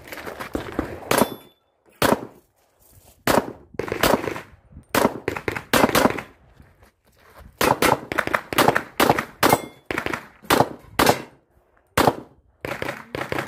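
Pistol shots fired in quick pairs, many in a row, with short pauses between strings; each crack has a brief echo off the range.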